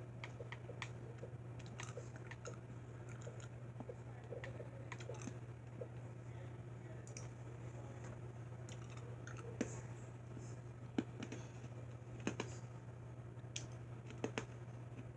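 Faint, scattered small clicks and taps over a steady low hum, with a few slightly louder clicks in the second half.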